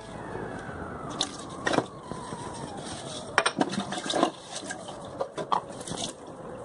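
Dishes washed by hand at a kitchen sink: glasses and crockery clink and knock against each other and the sink several times over running tap water and sponge scrubbing. A faint tone slowly falls in pitch in the background.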